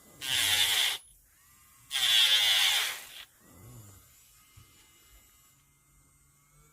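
Electric nail drill bit filing against a nail in two bursts, the first under a second and the second over a second long, with a faint steady motor tone between them.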